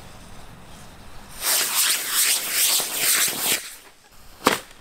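C6-5 model rocket motor burning for about two seconds with a loud rushing hiss, too weak to lift the big cardboard helicopter-style firework it is mounted on. A single sharp pop near the end.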